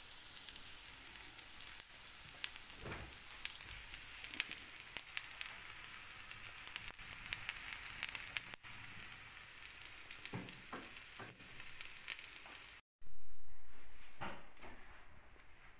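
Aloo tikkis shallow-frying in oil on a tawa over a low gas flame: a steady sizzle with frequent crackling pops. Near the end the sizzle cuts off and a louder low rumble starts suddenly and fades away.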